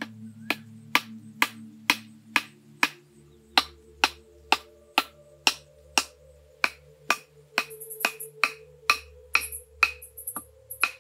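A wooden club striking a bamboo stake to drive it into the ground: a steady series of sharp knocks, about two a second.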